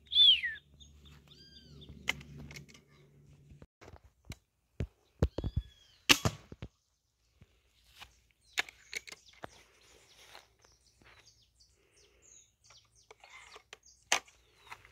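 A bird gives a loud, falling whistled call just after the start, with a couple of fainter similar calls later. Around it are scattered sharp clicks, snaps and knocks from willow twigs and branches being pushed aside, two of them louder.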